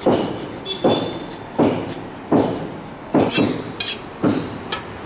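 Blade chopping smoked eel on a plastic cutting board: steady sharp chops, about one every three-quarters of a second, with a few lighter clinks in the middle.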